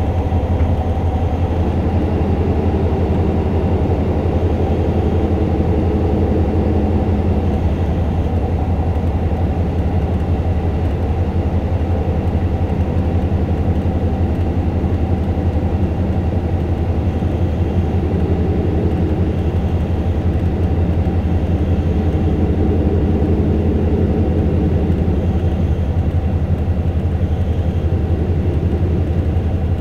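KiHa 185 diesel railcar under way, heard from inside the passenger cabin: a steady low engine drone with the rumble of the running gear on the rails.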